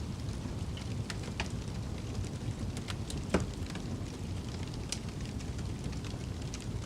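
Wood fire crackling in a fireplace: scattered sharp pops and snaps, one louder pop about halfway through, over a steady low rumble.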